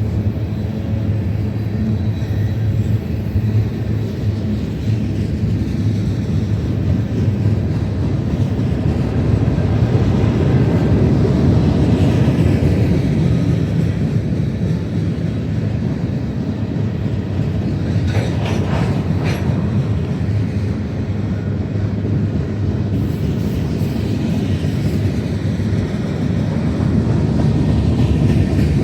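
Freight train cars rolling past: a steady, loud rumble of steel wheels on rail with clickety-clack. A brief burst of clanking comes about two-thirds of the way through.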